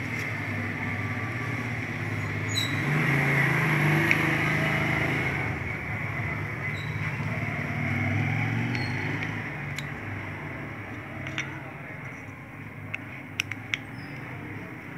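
Steady low background rumble and hum, swelling a few seconds in and easing later. Near the end come a few short sharp clicks of a screwdriver working a terminal screw on a sewing machine motor's plastic terminal block.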